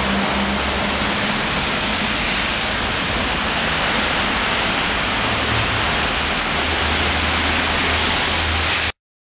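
Steady loud hiss of rain, with a faint low hum underneath at times; it cuts off suddenly near the end.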